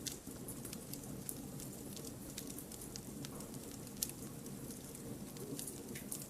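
Wood campfire burning: scattered sharp crackles and pops from the firewood over a steady low rush of flames.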